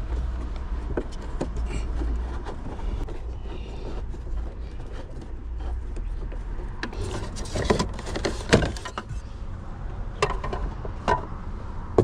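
Hand screwdriver backing out the screws of a plastic dashboard trim panel, and the trim being handled: scattered small clicks and knocks, busiest in the second half, over a steady low rumble.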